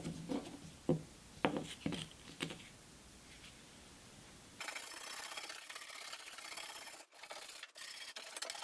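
A few light knocks as brushes are handled on a wooden bench top. About halfway through, a hard plastic bristle brush starts scrubbing steadily over a rusty, painted cast iron grate, knocking off loose rust and dirt.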